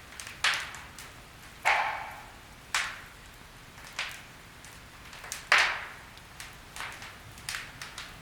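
Firewood logs burning in a fireplace, crackling with about ten irregular sharp pops; the loudest come about a second and a half and five and a half seconds in.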